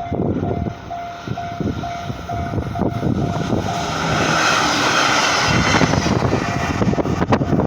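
Japanese level-crossing warning bell sounding its repeated ding about twice a second while a train passes over the crossing. Its rushing wheel-and-rail noise swells in the middle and briefly covers the bell, which is heard again near the end. Wind buffets the microphone.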